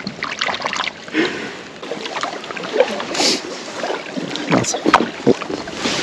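Kayak paddle strokes splashing in the water, with irregular short splashes and knocks.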